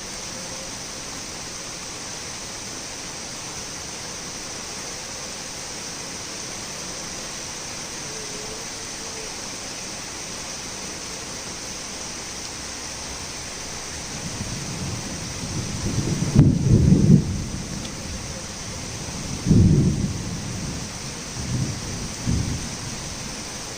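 Torrential rain falling steadily, with thunder rumbling in a little past halfway: a rolling rumble that swells to its loudest, then three shorter rolls near the end.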